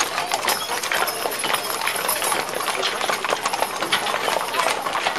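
Hooves of several horses walking on asphalt, a dense, uneven clip-clop, including a pair of draft horses pulling a passenger wagon.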